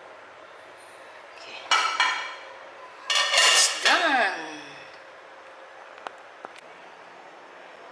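A ceramic serving plate scraping and clinking on the counter as it is shifted, twice, the second scrape ending in a squeal that falls in pitch; two light ticks follow.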